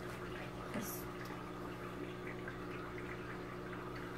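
Quiet steady room hum with faint clicks and rustles of hands working at a small makeup package to get it open; a short soft hiss about a second in.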